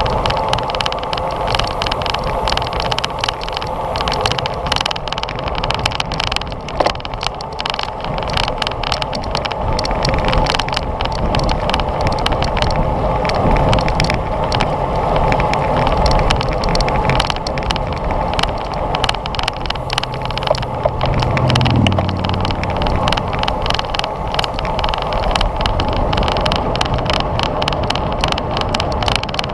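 Road bicycle riding at race speed: a steady rush of wind and tyre-on-road noise, with many small clicks and rattles throughout. A brief low hum comes in about two-thirds of the way through.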